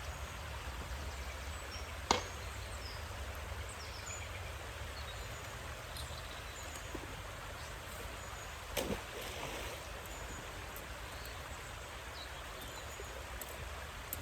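Steady rushing outdoor noise with a low rumble underneath, broken by a sharp click about two seconds in and a duller knock near nine seconds, while a magnet on a rope is hauled up from the water.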